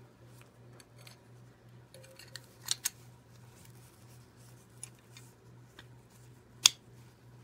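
Parts of a Hot Wheels Rear Loader Beach Bomb toy car snapping together as they are pressed into place: two small clicks about three seconds in, a few faint ticks of handling, then one sharp, louder snap near the end.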